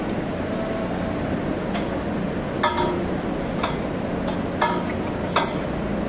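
Steady rushing hiss of large barn ventilation fans, with four short, sharp ringing knocks spaced about a second apart in the second half.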